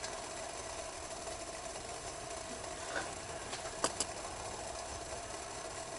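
Faint steady hiss with a thin hum and a few small pops past the middle, from a carbon-felt methanol burner running out of fuel under a pot of near-boiling water.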